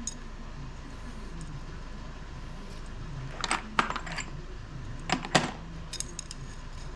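Small metal welding loops from a spot-welding dent puller kit clinking together as they are handled, in a few short clusters of light clinks about three and a half seconds and five seconds in.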